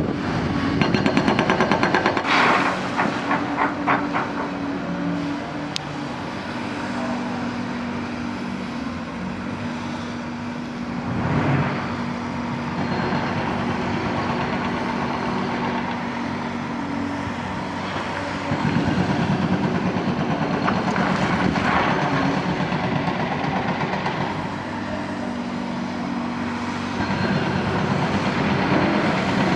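Hyundai hydraulic crawler excavator's diesel engine running under load, with bursts of clattering and knocking from concrete rubble being worked several times.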